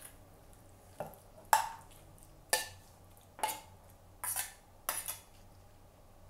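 Steel knocking against a stainless-steel mixer-grinder jar as chilled mango pieces are scraped in: a series of sharp metal clinks, several ringing briefly, with soft squelches of fruit between them.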